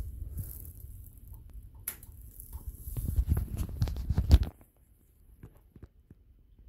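Rustling, knocking handling noise close to the microphone, louder toward the middle, then near silence from about four and a half seconds in.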